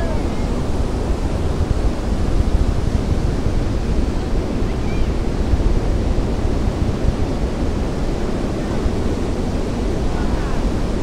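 Steady, crackling low rumble of a distant Falcon 9 rocket's nine Merlin 1D first-stage engines as it climbs.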